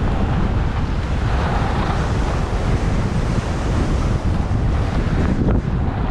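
Wind buffeting a GoPro Hero8's microphone during a downhill ski run, a steady rushing rumble, mixed with the hiss of skis sliding on groomed snow.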